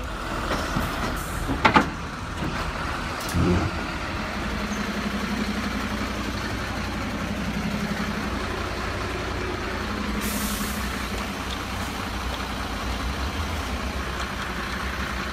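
A recorded truck engine running sound, steady throughout, accompanying a toy tow truck. Two sharp plastic clicks about two and three and a half seconds in, as the toy's stabiliser legs and bed are worked by hand.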